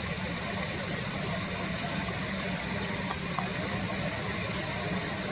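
Car engine idling with a steady low hum, under a steady high hiss, with two light clicks about halfway through.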